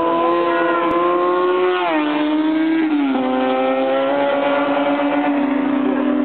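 Motorcycle engine at high revs passing at speed, its pitch dropping sharply twice as it goes by, then holding a steady high note.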